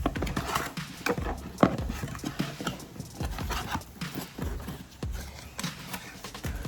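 Irregular knocks, taps and rustles of a mortar and pestle set being unboxed and handled, the loudest knock about a second and a half in.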